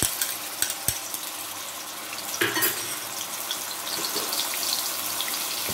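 Ground onion paste sizzling and crackling in hot oil in a steel pan, with a spoon knocking twice against the pan in the first second.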